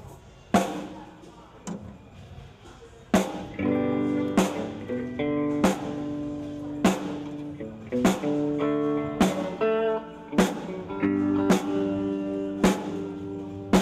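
Guitar strumming chords, about one strum every second and a quarter, each chord ringing on until the next. One strum comes about half a second in, and steady strumming starts about three seconds in.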